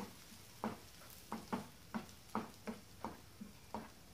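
Spatula stirring sautéed sliced onions and green chillies in a non-stick frying pan: a run of soft, short scrapes and knocks, about two a second.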